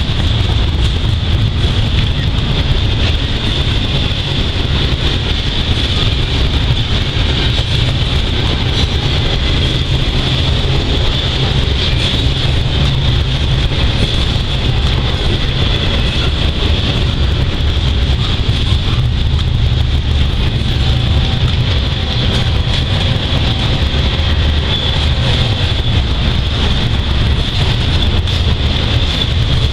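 Norfolk Southern intermodal freight train rolling past: a steady, loud low rumble of the cars on the rails, with a constant high-pitched hiss above it.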